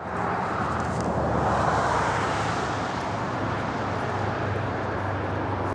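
Steady distant engine noise, swelling slightly about a second and a half in.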